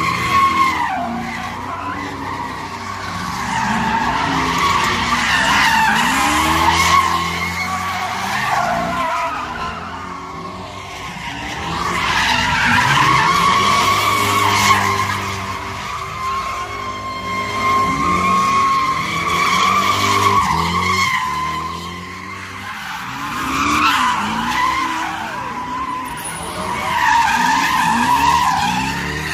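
Cars doing donuts on asphalt: the tires squeal in a sustained, wavering screech while the engine revs up and down. The sound swells and fades about every five to six seconds as the car circles.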